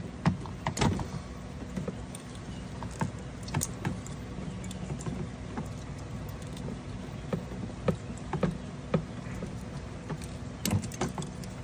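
Scattered small clicks and rustles of spade-terminal wires being pulled off a 48-volt brake-light relay and handled, with a quick cluster of clicks near the end, over a steady low hum.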